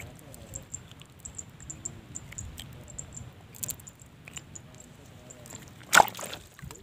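Outdoor pond-side ambience: a quick run of faint, high-pitched ticks over a low rumble, with a few small clicks, then one sharp knock about six seconds in, the loudest sound.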